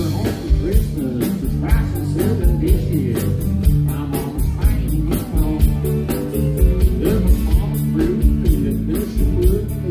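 Live amplified country song: a man singing with strummed acoustic guitar over a steady beat.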